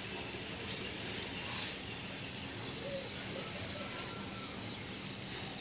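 Steady outdoor background hiss, with a few faint, brief tones near the middle.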